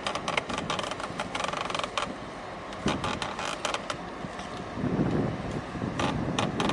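Outdoor wind and handling noise on the microphone: a low rumble with runs of sharp clicks and crackles, densest in the first two seconds, and a louder rumble swelling about five seconds in.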